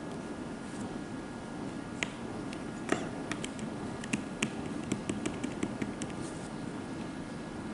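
Diamond painting pen tapping and clicking as it picks up drills and presses them onto the canvas: a run of small, sharp, irregular clicks in the middle stretch, over a steady faint room hum.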